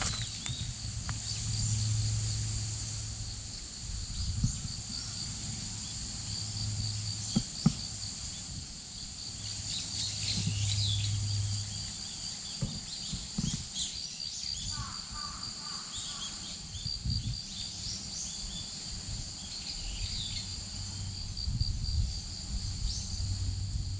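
A chorus of insects trilling steadily, with short bird chirps now and then and a few soft knocks and rustles.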